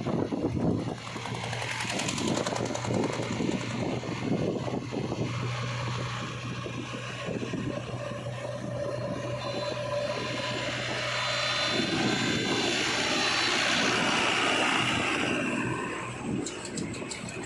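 Diesel engine of heavy earth-moving machinery running steadily with a low hum. From about twelve seconds in it grows louder and harsher, as if working under load, then eases off near the end.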